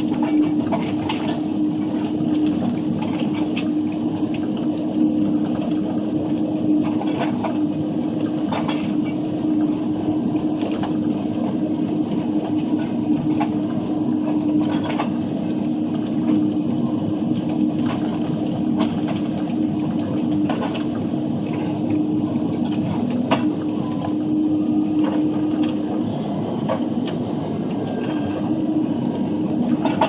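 Waratah 622B processing head working a log: the carrier machine's engine and hydraulics run steadily with a constant hum, and frequent short knocks and snaps come as the head grips and feeds the stem.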